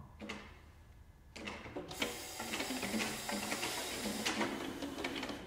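Square wooden bass recorders played with extended techniques: a few soft clicks, then from about a second and a half in a dense clatter of key clicks over breathy air noise, with a few low held tones.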